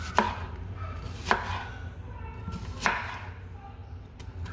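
Kitchen knife cutting through an onion and knocking on a cutting board: three sharp knocks a second or so apart, with a fainter one near the end.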